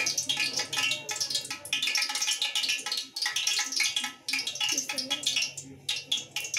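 Hot cooking oil sizzling in an aluminium pot on a gas stove, a dense crackle of many small pops.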